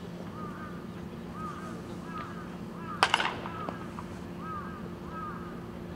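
A wooden baseball bat strikes a ball once, about three seconds in: a single sharp crack. Short arched bird calls, about one a second, and a steady low hum continue underneath.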